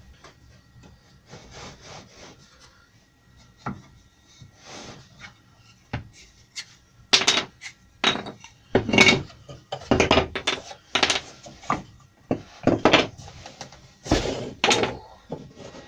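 Dry-fitted tulipwood (yellow poplar) spindles and their flat Domino loose tenons being pulled out of the rail's mortises and set down on a board: irregular wooden rubbing, scraping and knocking, faint at first and much louder in the second half.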